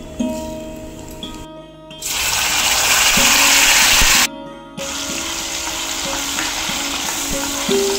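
Green masala paste frying in hot oil with tempered mustard and cumin seeds in a stainless steel pan: a loud sizzle starts suddenly about two seconds in as it hits the oil, breaks off briefly, then goes on a little quieter as it is stirred with a spoon. Soft background music plays underneath.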